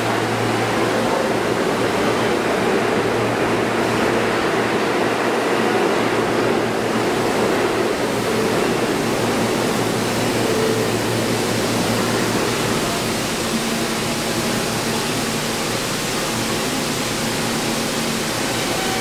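Alstom R160A subway train standing in the station with its doors open: a steady hiss from its air-conditioning and ventilation over a low, steady hum from its onboard equipment.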